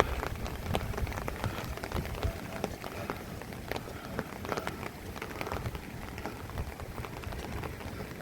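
Rain falling, with many irregular sharp drop ticks close by over a steady hiss.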